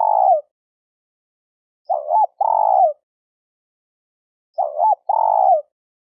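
Spotted dove cooing: each phrase is a short two-part coo followed by a longer coo that sags slightly in pitch, repeated about every two and a half seconds, with silence between phrases.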